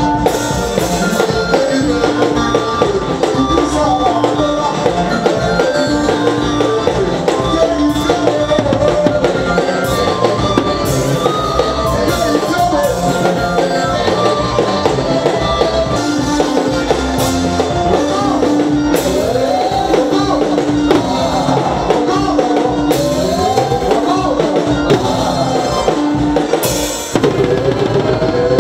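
Live dance-band music: an electronic keyboard plays a repeating melodic riff over drum kit, bass and electric guitar with a steady beat.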